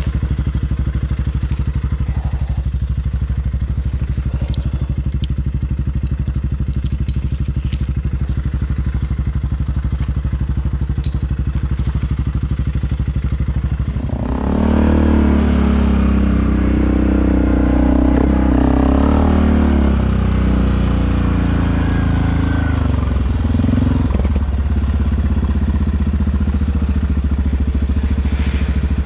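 ATV engine running at low revs with a few light clicks and knocks, then about halfway through it opens up and runs louder and harder, its revs rising and falling.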